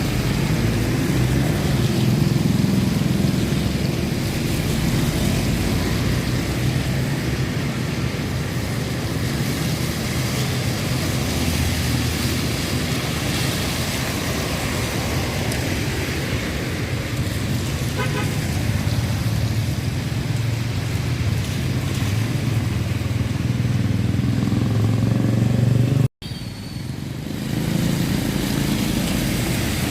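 Road traffic at an intersection: cars and motorcycles running and passing by in a steady stream of engine noise. The sound cuts out for an instant about 26 seconds in.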